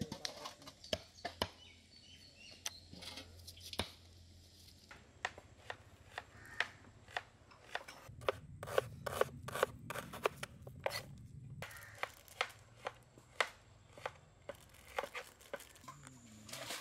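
Knife cutting raw chicken and then onions on a wooden cutting board: sharp, irregular taps of the blade on the board, coming faster and louder in the middle.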